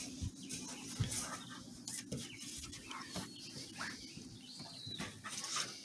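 Two border collie puppies play fighting, scuffling on wooden deck boards with claws scraping and paws knocking, and a few short high squeaks.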